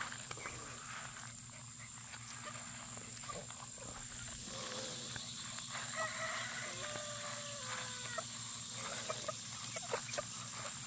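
Free-range chickens and a young turkey foraging in grass: a few short, soft calls in the middle, amid rustling and small ticks, over a steady high whine and a low hum.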